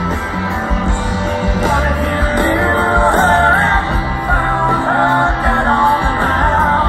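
Live rock band playing: electric guitars and drums with a voice singing over them, the vocal line clearest from about two seconds in, heard from the audience seats of an open-air amphitheatre.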